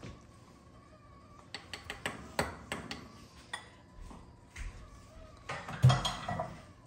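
Wire whisk clinking and scraping against a glass bowl as sliced strawberries are stirred into a cream mixture. Near the end comes a louder clatter with a dull knock as dishes or utensils are set down.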